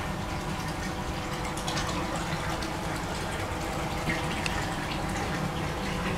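Water running and bubbling steadily in a fish tub, with small splashy ticks and a low steady hum underneath.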